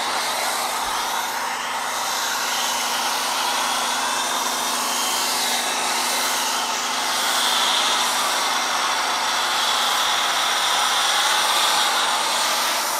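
MTM foam cannon on a pressure washer spraying a steady stream of foam: an even hiss of spray with a steady hum underneath.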